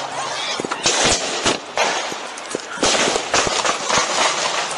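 Gunfire: many shots in quick, irregular succession, some loud and close with echo after them, others fainter, over a constant noisy background.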